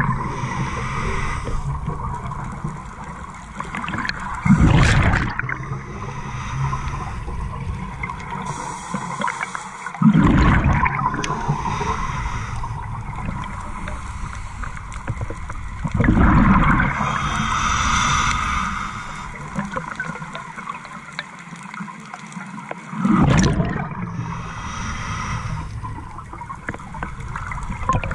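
Scuba diver breathing through a regulator underwater: a hiss on each inhale, then a low rush of exhaled bubbles, about every six seconds.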